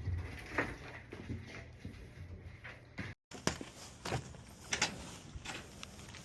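Scattered light knocks and clicks of equipment being handled, a few a second at most and none of them loud, with a brief cut in the sound about three seconds in.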